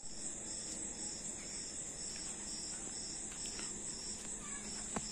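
Night chorus of crickets: a continuous high, shrill trill with a second, slightly lower insect call pulsing over it. A single sharp click sounds near the end.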